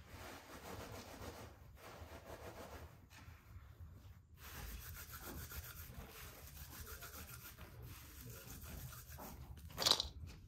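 Shelled walnut kernels being rubbed together by hand inside a cloth: a continuous rough rubbing and rustling, with a brief louder clatter near the end.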